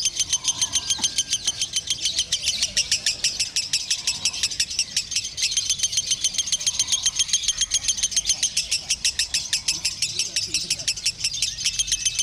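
Lovebird singing in the long, unbroken 'konslet' style: a rapid chattering string of high, harsh chirps, about eight a second, that never pauses.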